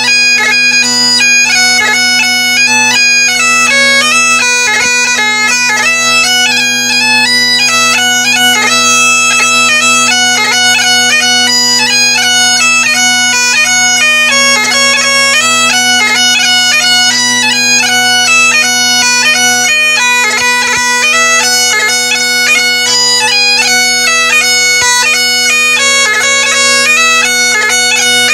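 Great Highland bagpipe playing a lively tune, the chanter melody stepping quickly from note to note with crisp grace notes over the steady, unbroken hum of the drones.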